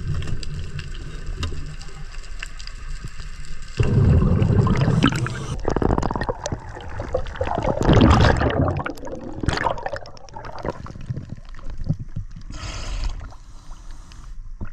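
Scuba diver's exhaled bubbles from the regulator gurgling, heard underwater: a steady low rumble, then two loud bubbling bursts about four seconds in and again from about six to nine seconds.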